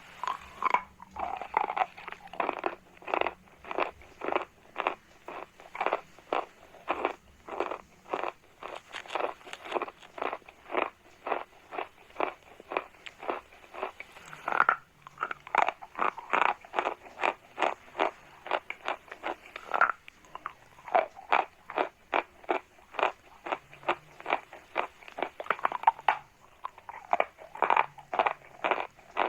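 Chalk being chewed, crunching between the teeth in a steady rhythm of about two to three crisp crunches a second. It breaks off briefly about halfway through and again near the end.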